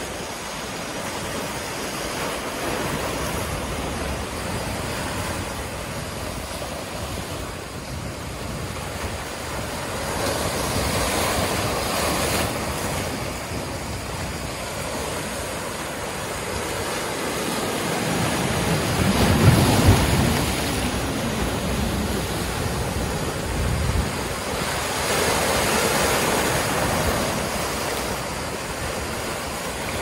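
Ocean surf breaking and washing over black lava rocks and the concrete armour blocks of a breakwater. It comes in several swells, with the loudest, deepest surge about two thirds of the way through.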